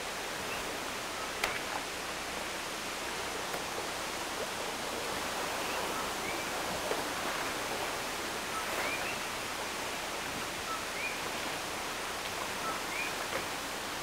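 Rainforest ambience: a steady rushing hiss with coquí frogs calling. Each call is two notes, a low 'co' then a higher, rising 'kee', repeating every second or two.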